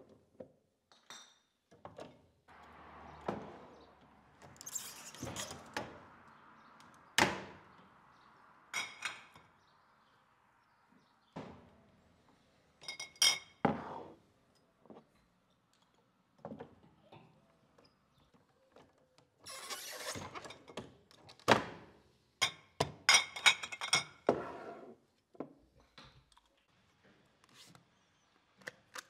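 Glass beer bottles and metal crown caps being handled, clinking and knocking in scattered bursts of sharp clinks and dull thunks.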